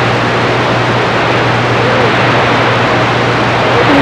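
CB radio on channel 6 putting out loud, steady static with a low hum under it. This is open-channel skip noise while the S-meter shows a signal coming in.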